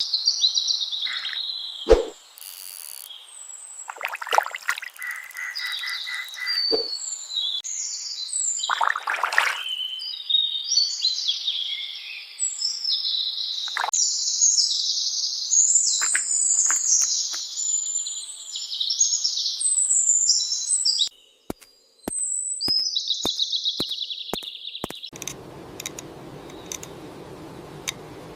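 Many birds chirping and singing over one another, with a few sharp clicks and knocks in between. About 25 seconds in the birdsong stops, leaving a low steady hiss with light ticks.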